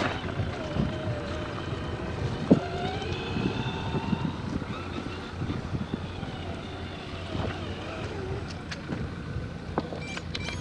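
Whine of a radio-controlled crawler truck's electric motor, rising and falling in pitch with the throttle, with scattered sharp clicks and knocks.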